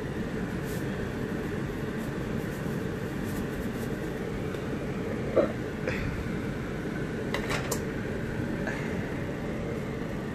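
A fan running with a steady low hum, with a few light clicks and knocks in the middle, the clearest about five and a half seconds in.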